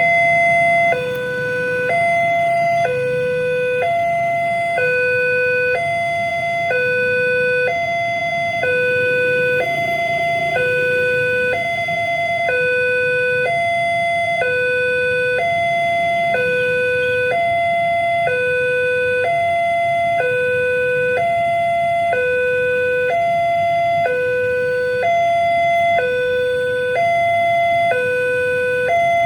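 Railway level-crossing warning alarm sounding: an electronic two-tone signal alternating high and low about once a second, warning of an approaching train. The high tone wavers briefly about a third of the way through.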